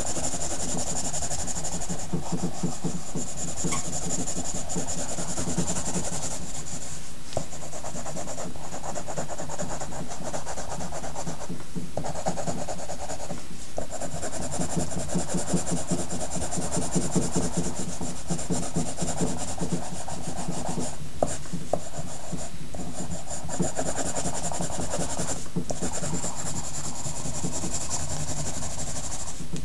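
Pencil rubbing and scratching on paper in quick, repeated back-and-forth strokes, over a steady hum.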